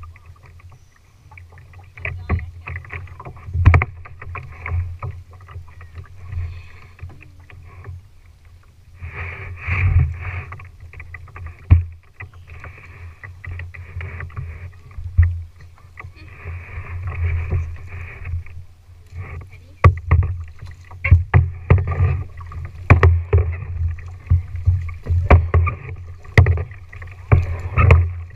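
Kayak paddles splashing in the water and knocking against a plastic tandem kayak, over a steady low rumble. The knocks come irregularly at first, then turn into a quick, fairly even run of paddle strokes over roughly the last third.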